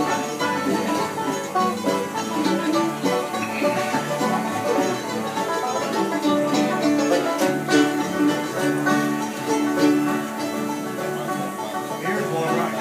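Acoustic bluegrass jam: banjo, mandolin and acoustic guitar playing a tune together.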